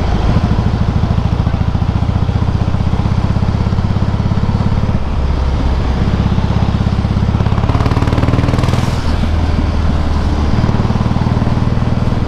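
Harley-Davidson Softail Heritage V-twin running loud through aftermarket Screamin' Eagle exhausts while riding, with a steady low throbbing pulse. The engine note shifts twice, about five seconds in and again near ten seconds.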